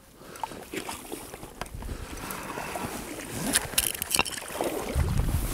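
River water sloshing and splashing around an angler's waders as he wades and shifts his footing, in irregular splashes that come thickest a little past the middle, with a low rumble near the end.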